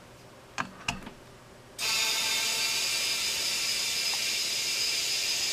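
Compressed air hissing steadily through an air chuck into a tubeless motorcycle tyre via its Schrader valve as the tyre is inflated. Two light clicks come first, and the hiss starts a little under two seconds in.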